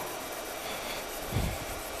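Cotton waste with polishing compound being rubbed by hand over a car door's painted frame, scrubbing off old rain-deflector adhesive: a soft, even scrubbing. A dull low thump about one and a half seconds in.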